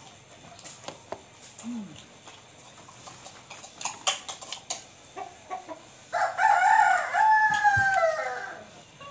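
A rooster crows once, a long call of about two and a half seconds starting about six seconds in and falling in pitch at its end. Before it, faint scattered clicks and taps.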